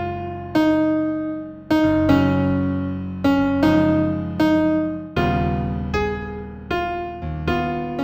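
Slow new age piano music in F major: chords and single notes struck roughly once or twice a second, each left to ring and fade before the next.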